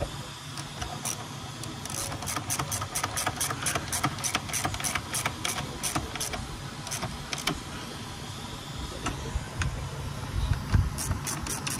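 Ratchet wrench clicking in quick runs of about four clicks a second as intake manifold bolts are tightened, pausing for a few seconds before clicking again near the end.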